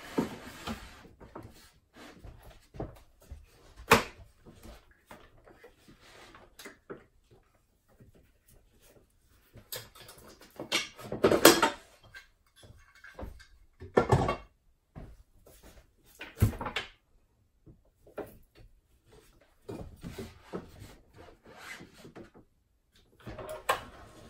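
Plywood strips being handled on a miter saw bench: scattered wooden knocks and clatter as pieces are set down and shifted, with a longer scraping slide of wood on wood about eleven seconds in.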